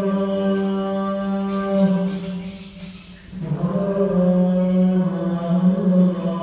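A single voice chanting in long, held notes, with a short pause for breath about halfway through.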